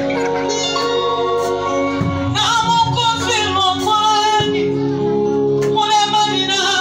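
A woman singing a gospel song into a microphone over the PA, with steady held chords of accompaniment beneath. Her voice comes in strongly a little over two seconds in, on long, wavering notes.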